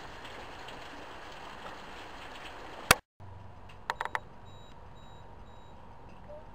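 Heavy rain falling on a garden, a steady hiss that cuts off abruptly about three seconds in with a loud click and a moment of dead silence. After that comes a much quieter, steady background with a few small clicks.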